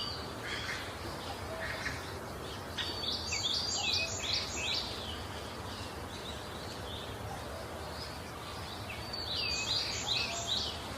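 A bird singing: two quick runs of rapid, high, down-slurred chirps, about three seconds in and again near the end, with softer scattered chirps between, over a steady low background noise.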